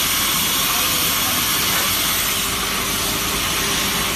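Loud, steady hissing noise of running workshop machinery, with a faint steady hum under it.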